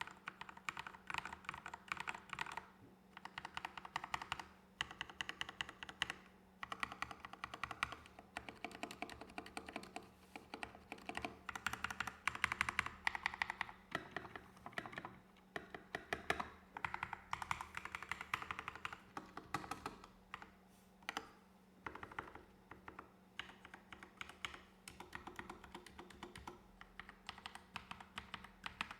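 Typing on an Epomaker GK61X 61-key mechanical keyboard with Akko CS Rose Red linear switches and HyperX Pudding keycaps: fast runs of keystrokes broken by short pauses.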